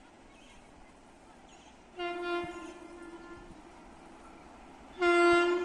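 Horn of an approaching WAP-7 electric locomotive, sounded twice: a short blast about two seconds in and a louder one near the end, each a single steady note.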